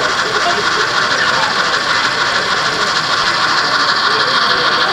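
Model steam locomotive running past with its onboard sound playing a steady steam hiss, over faint crowd chatter.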